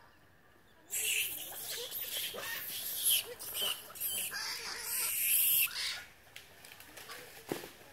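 Baby long-tailed macaque screaming while an adult holds and grooms it. The scream is harsh and high-pitched, starts about a second in and lasts about five seconds.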